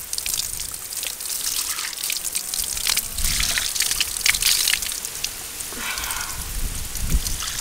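Spring water pouring in a steady stream from a pipe spout and splashing, with hands catching the water and splashing it over a face.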